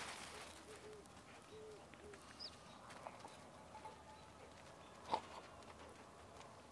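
Faint bird calls: a few short low notes in the first two seconds, then a brief high chirp. A single sharp click comes about five seconds in.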